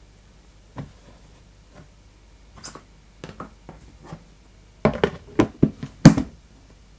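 Plastic food-storage container handled and its lid pressed shut. A few soft taps come first, then a quick run of sharp plastic clicks and knocks about five to six seconds in.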